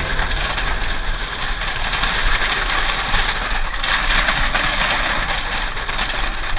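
Dirt bike rolling across a bamboo bridge: the loose bamboo slats clatter and rattle steadily under the tyres, with the engine running underneath.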